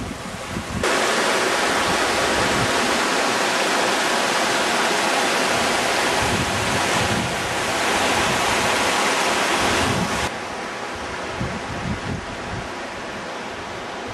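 Fast mountain stream rushing over rocks: a loud, steady hiss of water that starts suddenly about a second in and falls away suddenly about ten seconds in, leaving wind buffeting the microphone.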